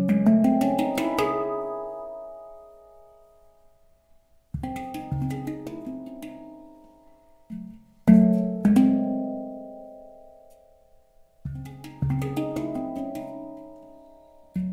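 Handpan of nitrided steel tuned to C# Romanian Hijaz, struck by hand: short runs of quick notes, each run left to ring and fade away over a few seconds, with deep bass notes under brighter ringing overtones.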